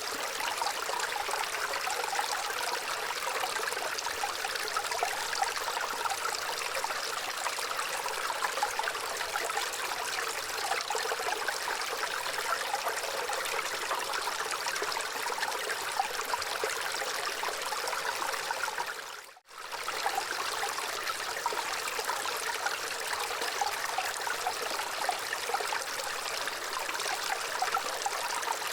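Gentle running water trickling steadily, a bright flowing splash with little low rumble. It fades out and straight back in for a moment about two-thirds of the way through.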